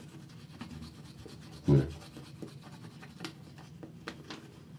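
Manual toothbrushes scrubbing teeth, a soft rasping brushing with a few small clicks. About two seconds in comes one short, low voiced sound, like a mumbled syllable through a mouthful of toothpaste.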